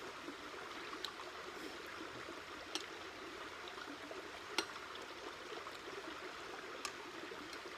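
Steady rushing outdoor background with about four sharp metallic clinks from stainless steel eating bowls being handled, the loudest a little past the middle.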